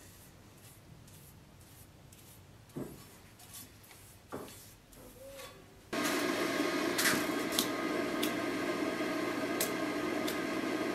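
Quiet workshop with a couple of light knocks as a steel blade is handled, then, about six seconds in, a multi-burner gas forge starts sounding, a loud steady rushing noise with a few sharp clicks over it.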